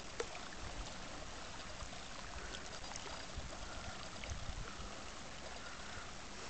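Lake water lapping steadily and faintly against the shore, with a low wind rumble on the microphone and a few small clicks.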